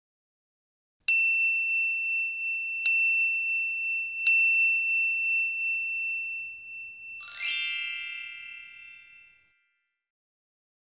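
Bell-like chime struck three times about a second and a half apart, one high tone ringing on between the strikes, then a brighter shimmering chime about seven seconds in that fades out over two seconds.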